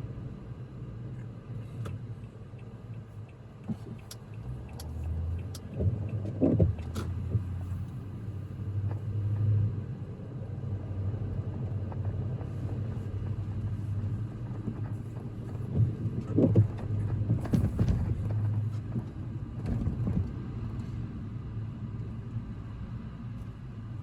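Car driving on a snow-covered road, heard from inside the cabin: a steady low rumble of engine and tyres, with a few short knocks and bumps about a quarter of the way in and again past two-thirds.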